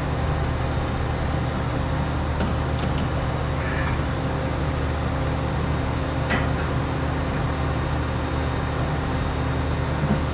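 Small home-made forge running with a steady rushing drone and a low hum, with a few faint metal clicks and taps about two to three seconds in and again after six seconds.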